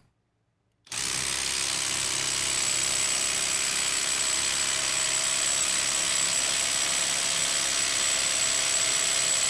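Hercules HCB81B brushless 1/4-inch impact driver hammering continuously at full trigger under load on a torque dyno. It starts about a second in and holds a steady, even level with a thin high whine.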